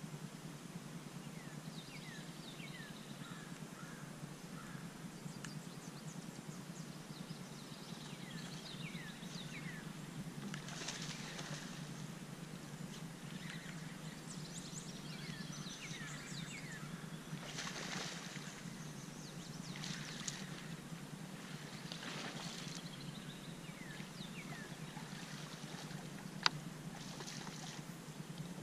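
Outdoor lakeside ambience: birds singing in short, falling chirps throughout, over a steady low hum, with a few brief noisy swells and one sharp click near the end.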